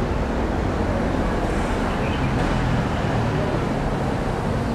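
Steady road traffic noise from passing vehicles.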